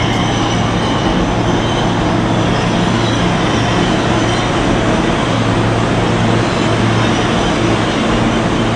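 New York City subway train running, a loud, steady rail noise with a low hum underneath.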